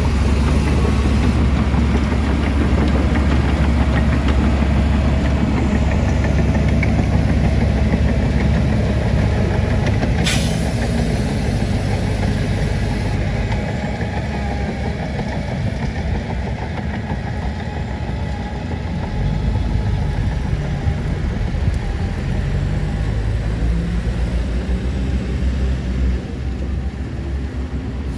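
Heavy diesel construction machine engine running steadily, with one sharp knock about ten seconds in.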